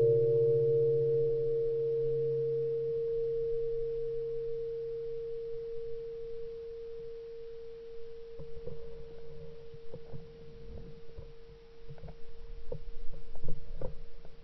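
A struck bell-like tone, like a singing bowl, ringing on and slowly fading, with a lower hum under it that dies away about six seconds in. Faint scattered clicks and taps come in over the last few seconds.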